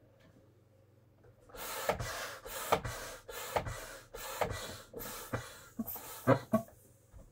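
Hand air pump worked in a run of strokes about one a second, starting about a second and a half in: each stroke a rush of air, many ending in a sharp click, as it inflates a vinyl inflatable pony.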